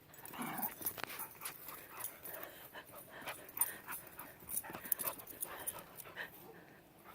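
Dogs playing: a short whining call about half a second in, then quick clicks, scuffles and brief vocal sounds from the dogs throughout.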